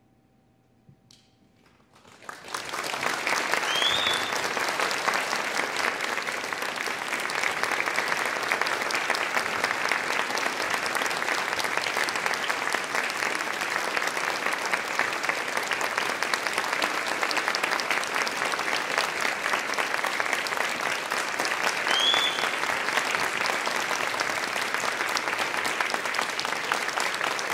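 Near silence, then an audience starts applauding about two seconds in. The clapping rises quickly and holds steady and dense.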